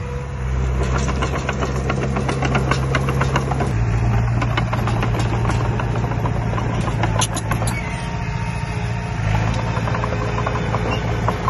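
Diesel engine of heavy construction machinery running under load, its note shifting several times, with fast rattling clicks over it.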